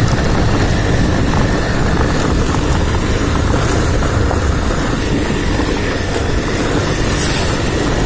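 Motorcycle being ridden, a steady rumble of engine and road noise.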